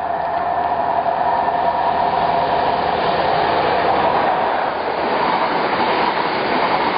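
Passenger train running past close by on the station line: a loud, steady rush of wheels on rail with a steady whining tone above it.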